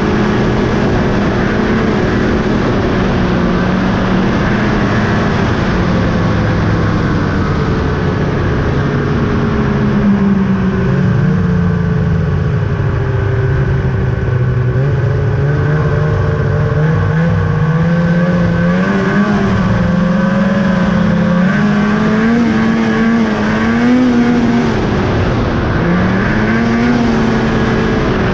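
2000 Ski-Doo Summit 800's two-stroke twin engine running under way, its pitch easing down about ten seconds in and climbing back up, then rising and falling with the throttle in the second half.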